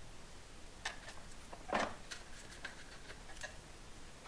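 Light plastic clicks and knocks of PVC drain pipe and fittings being pulled apart and handled, with one louder knock just under two seconds in.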